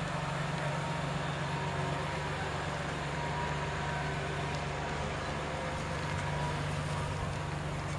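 2001 Ford Ranger's 4.0-litre V6 gas engine running at a steady, even hum, with no revving, as the pickup drives slowly across grass.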